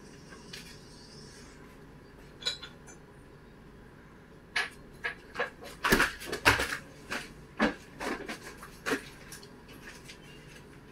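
A run of sharp, irregular clattering knocks and clicks, about a dozen over four seconds, loudest about six seconds in, over a faint steady background.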